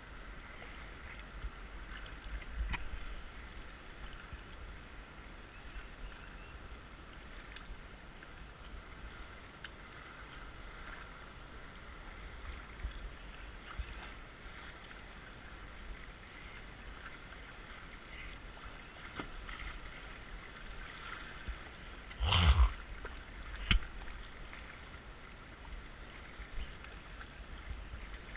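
A kayak moving on fast, flooded creek water: a steady faint wash of water around the hull, with occasional small paddle splashes and knocks. A louder short thump comes about three-quarters of the way through, with a smaller one just after.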